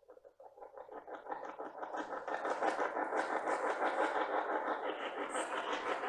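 Handheld spirit box sweeping rapidly through radio frequencies, giving a choppy stream of radio static chopped many times a second. It fades in from silence over the first two seconds, then holds steady.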